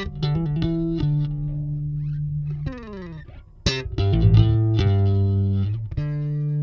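Custom five-string neck-through electric bass, played solo through a Kemper profiler: held notes, with a slide down in pitch about three seconds in, then a sharp attack and more sustained notes.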